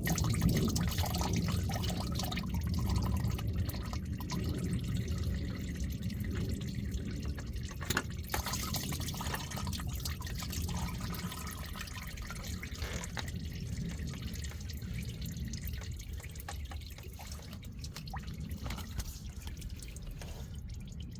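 Used engine oil draining and dripping from the car into a catch bucket, a steady running trickle that slowly grows quieter, with a few scattered clicks.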